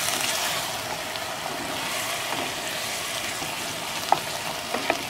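Vegetables in spiced masala sizzling steadily in an enamelled pot over a high flame while a wooden spatula stirs them. A couple of light clicks of the spatula against the pot come about four seconds in.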